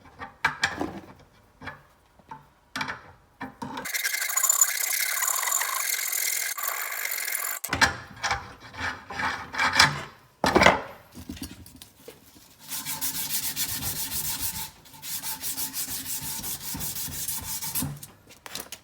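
Metal being worked by hand on a lawn tractor's weld-built-up front wheel spindle: scraping and rubbing strokes of filing and sanding, with scattered clicks of parts and tools. There are two long stretches of steady rasping, and a run of separate strokes about a second apart between them.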